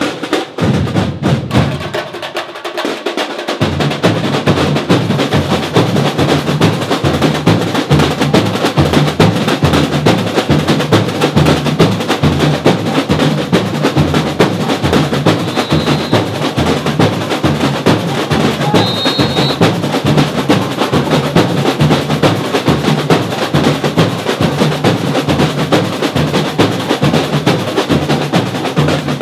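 Percussion ensemble of drums and hand percussion playing a fast, steady, driving rhythm. It thins out briefly about two seconds in, then comes back in full.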